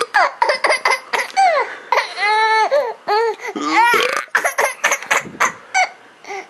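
High-pitched laughter in short, choppy bursts, with one longer high-pitched squeal about two seconds in.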